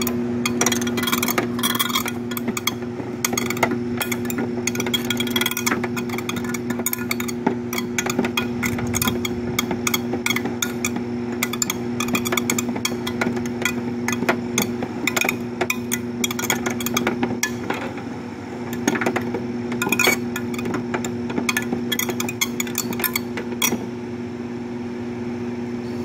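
Window air conditioner's 120-volt fan motor running on 240 volts, double its rated voltage: a steady electrical hum with a constant clatter of rapid clicks and rattles.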